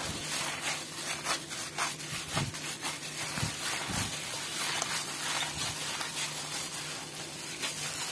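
Hands in disposable plastic gloves kneading a wet minced chicken kofta mixture in a glass bowl: irregular squelching and rubbing strokes.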